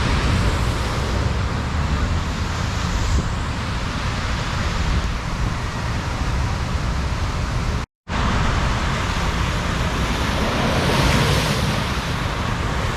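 Steady rush of water-park water, with wind buffeting the microphone; the sound drops out for a moment about eight seconds in.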